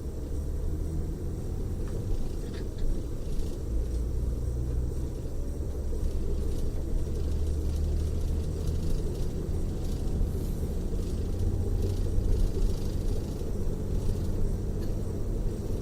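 Coach bus heard from inside the cabin while driving: a steady low rumble from the engine and the road, with a faint whine that rises slowly in pitch as the bus gathers speed.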